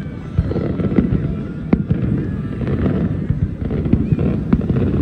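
Fireworks display: a steady rumble of bursting shells with frequent sharp bangs, the strongest about a third of the way in and again near the end.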